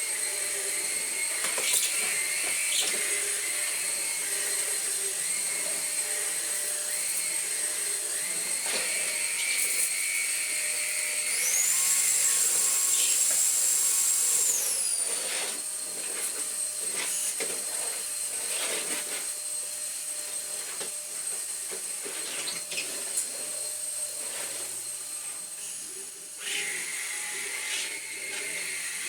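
Numatic NQ100 cordless bagged stick vacuum running, with a high-pitched motor whine and scattered knocks from the floor head. About 11 seconds in, the whine jumps higher and louder for about three seconds, then settles back.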